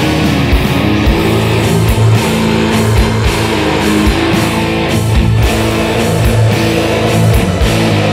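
Funeral doom metal: slow, heavy guitars and bass holding sustained chords, with a low drum hit roughly once a second.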